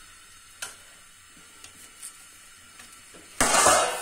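A few small clicks, then near the end a short, loud clatter as the metal skewer of liver pieces is set down onto the steel burner grate of a gas stove, while the flame below it flares up.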